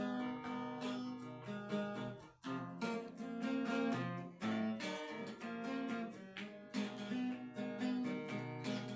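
Acoustic guitar strummed in a steady rhythm of chords, the instrumental accompaniment to a hymn, with a brief break about two and a half seconds in.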